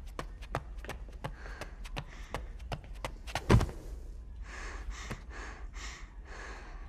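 A person gasping and panting in quick, breathy breaths, about two or three a second, over the last couple of seconds. Before that come scattered sharp clicks and a single thump about three and a half seconds in.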